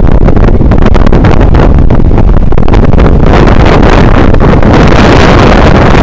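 Heavy storm surf from a nor'easter, with waves breaking and foaming wash pouring over the beach, under strong wind buffeting the microphone. The hiss of the surf grows fuller about halfway through.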